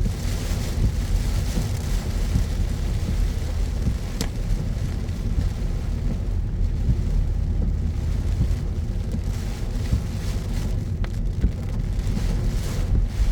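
Car driving on wet city streets in heavy rain: a steady low rumble of road and engine noise under the hiss of rain and tyres on the wet road, with two short sharp ticks, one about four seconds in and one about eleven seconds in.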